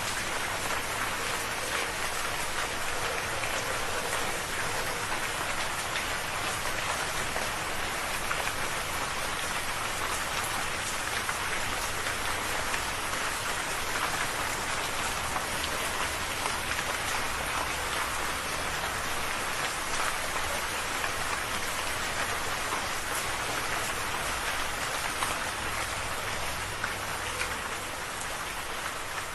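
Steady rain falling, an even hiss of many small drop hits that holds at the same level throughout.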